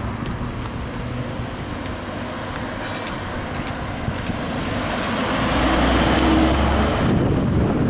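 Mercedes-AMG C43 sedan driving slowly up and past close by, its engine and tyres growing louder to a low steady rumble that peaks around six to seven seconds in.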